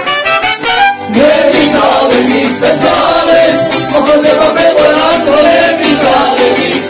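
Mariachi band music: short trumpet notes end a phrase, and about a second in singing comes in over the band.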